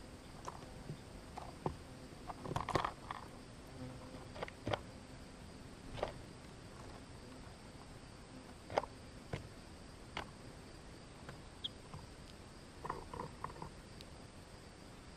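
A mourning dove feeding at a tray of black sunflower seeds right beside the microphone: scattered sharp taps and clicks of pecking and shifting seeds. There is a short flurry of movement about three seconds in and another near the end.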